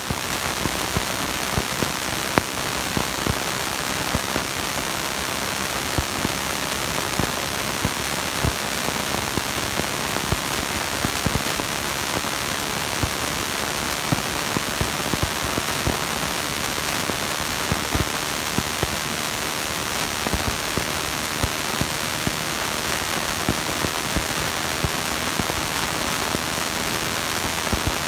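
Steady rain: an even hiss with many small drop ticks scattered through it.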